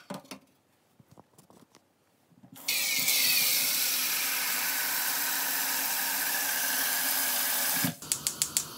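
Tap water running full into an aluminium pot in a stainless steel sink, starting about two and a half seconds in and shut off abruptly near the end. Right after, a gas stove's igniter clicks about five times in quick succession and the burner lights with a soft steady hiss.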